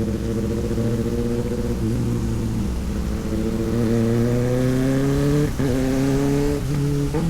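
Motorcycle engine running under way, its pitch climbing steadily, with brief breaks in the note about five and a half seconds in and again just before the end.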